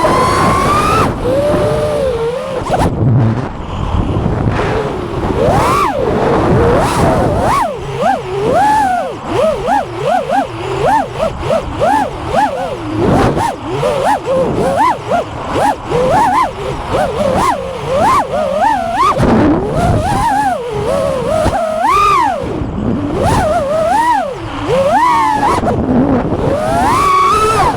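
FPV quadcopter's motors and propellers whining as the throttle is punched and chopped. The pitch swoops up and down again and again, about once or twice a second, throughout.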